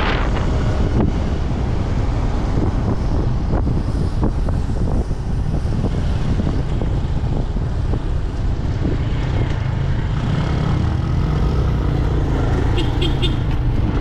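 A moving vehicle: a steady low rumble of road and engine noise.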